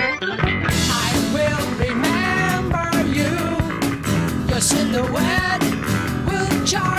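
Background rock music with guitar and singing over a steady beat; the band comes in fuller under a second in.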